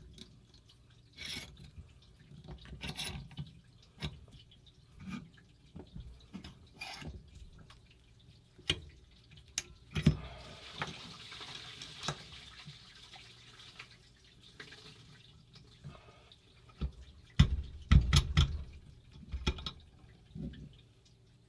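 Scattered clicks and knocks of metal tools and a paintball marker being handled in a bench vise, with a soft hiss for a few seconds about halfway through and the loudest knocks bunched near the end.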